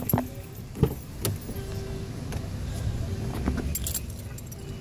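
A few sharp clicks and light metallic jingling over a steady low rumble.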